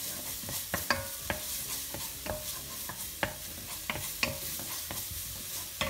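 Wooden spoon stirring onion and garlic in an enamelled pot, knocking and scraping against the pot about twice a second, irregularly. Underneath is the steady sizzle of the onion and garlic sweating in hot oil.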